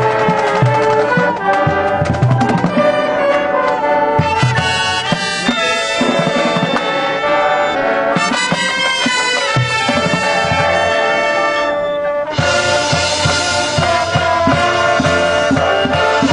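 High school marching band playing: sustained brass chords from trumpets and trombones over drum hits. About twelve seconds in, a cymbal wash comes in and the passage grows fuller.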